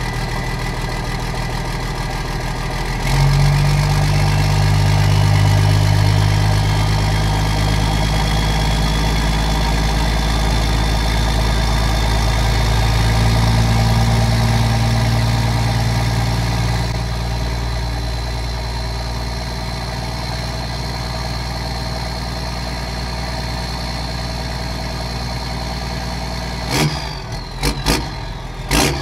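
12-valve Cummins 5.9 L inline-six diesel running through a straight exhaust stack, idling, then held at a louder, higher speed from about three seconds in until it settles back after about seventeen seconds. A high whine climbs in pitch as the engine comes up and holds, then falls away near the end, where a few sharp clicks sound.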